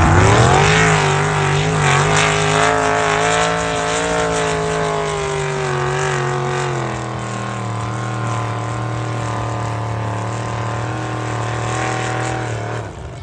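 A vehicle engine revs up sharply and then runs hard at high revs, its pitch wavering slightly, dropping a step about seven seconds in and then holding before cutting off abruptly near the end.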